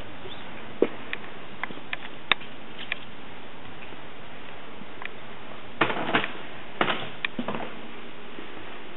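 Steady hiss with scattered light clicks, and two louder clusters of knocks and rustles about six and seven seconds in: handheld camera handling noise and footsteps.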